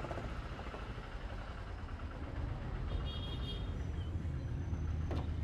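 City street traffic: a steady low rumble of vehicle engines that grows a little louder toward the end, with a faint high tone about three seconds in.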